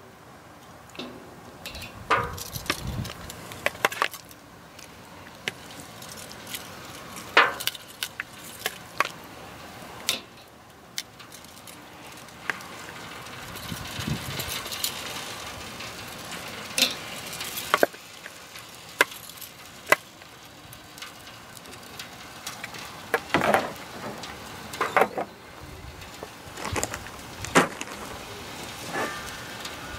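Metal tongs clicking and clacking against a glass bowl and a kettle grill's steel grate as marinated chicken thighs are lifted out and laid on the grill, in irregular knocks. Wind rumbles on the microphone at times.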